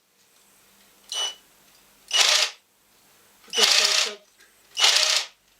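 Hands handling a new cordless power tool: four short plastic scraping and rattling sounds, about a second apart. No motor is running.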